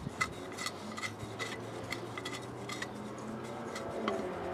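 Light metallic clicks and ticks, a few a second and irregular, as a nut is turned by hand onto the threaded shaft that holds a double-groove belt pulley.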